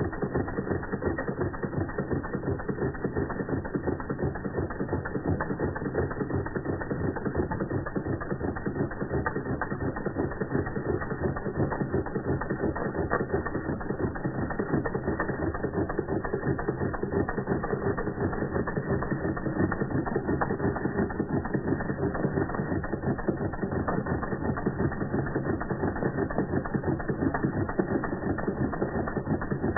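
Doll model 338/1 toy steam engine running steadily at speed: a fast, even clatter of rapid strokes from the small cylinder, crank linkage and spinning flywheel.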